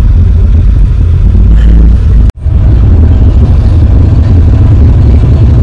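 Steady, heavy low rumble of a moving Volvo sleeper coach bus heard from inside the cabin: road and engine noise. It cuts out sharply for an instant about two seconds in and then carries on.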